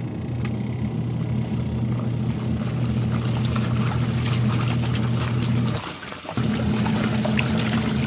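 Fujidenzo 8 kg washing machine in its wash cycle: the motor hums steadily while the pulsator churns soapy water and clothes with a sloshing splash. The motor stops for about half a second around six seconds in, then starts again as the wash changes direction.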